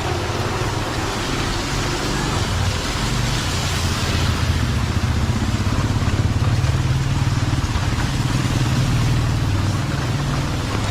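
A motor vehicle engine running close by, growing louder in the middle and easing off near the end, over the steady hiss of heavy rain.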